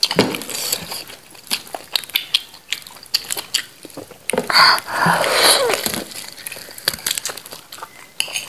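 Close-miked eating: wet chewing, smacking and biting as meat is torn from a cooked goat's head by hand and mouth, in many small clicks and crackles, with a longer, louder wet noise about halfway through.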